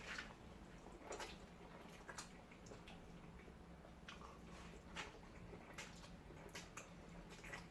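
Faint eating sounds: scattered, irregular mouth clicks and smacks of someone chewing food, a few each second at most.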